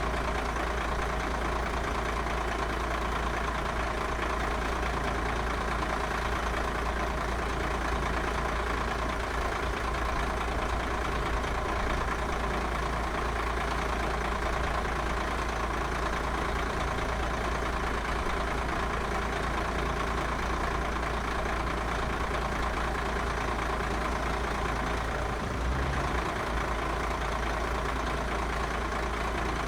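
Old school bus diesel engine running steadily at an even, unchanging speed.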